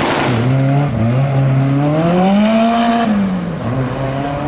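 A modified car's engine and exhaust accelerating: the engine note holds briefly, climbs steadily in pitch for about two seconds as it revs up, then drops back as the revs fall near the end. A short burst of noise comes right at the start.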